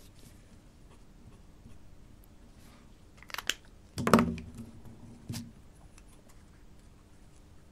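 Craft tools handled on a paper-covered table: a few light clicks about three seconds in, then a louder knock as a pair of plastic-handled scissors is picked up, and one more click a second later.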